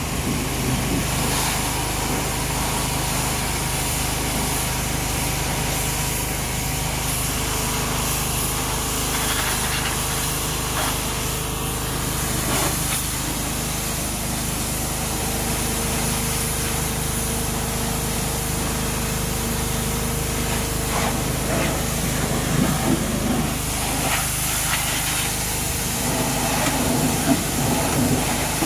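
Engine-driven pressure washer running steadily, its spray hissing, with a few irregular knocks and clatters.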